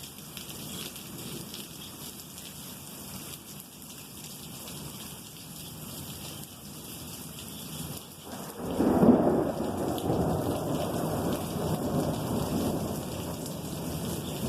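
Steady rain falling, then about eight seconds in a loud low rumble of thunder breaks in and keeps rolling without a break.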